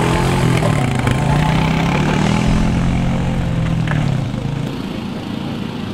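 A vehicle engine running close by, its pitch wavering up and down, dropping away about four seconds in.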